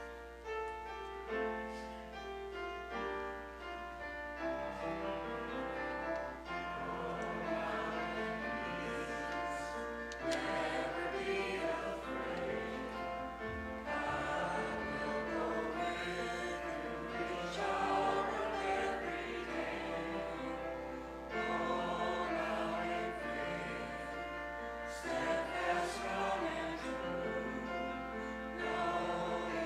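Choral music: a choir singing, starting right at the beginning and continuing throughout.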